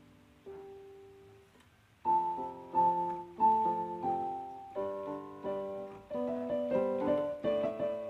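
Background piano music: a single note about half a second in, then from about two seconds in a run of struck notes and chords, each fading after it is played.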